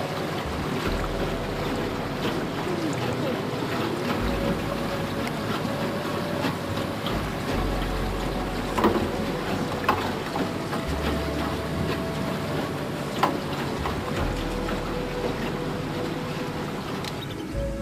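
Tour boat's motor running steadily while under way, with wind rumbling on the microphone in gusts and a few sharp knocks about nine, ten and thirteen seconds in.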